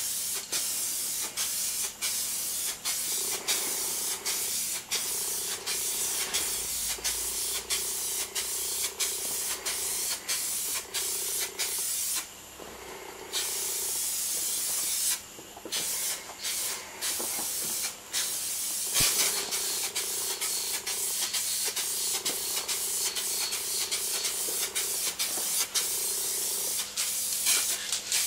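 Aerosol spray-paint can hissing as a second coat of paint goes on, the nozzle released for a split second again and again between passes, with a longer pause of about a second near the middle.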